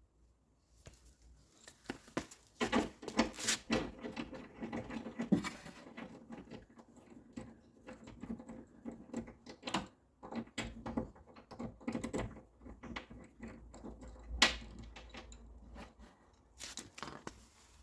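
Irregular clicks, taps and rattles of hands and a tool working on a plastic window-glass stabiliser and its 10 mm bolt inside a car door. A sharper knock comes about two-thirds of the way through.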